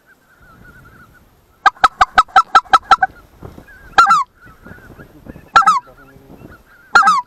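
Goose honking: a rapid run of about eight loud honks, then three single honks spaced about a second and a half apart. Fainter goose calling goes on steadily behind them.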